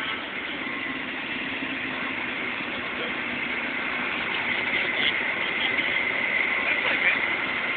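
A steady engine idle with a held high whine on top, growing slowly louder.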